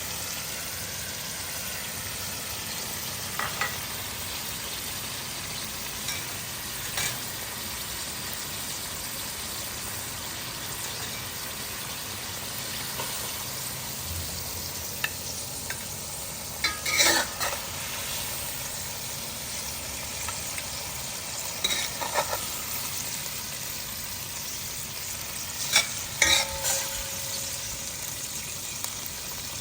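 Hot oil sizzling steadily as food fries in a pan, with a few short clinks and knocks of a utensil against the pan, the loudest about halfway through and near the end.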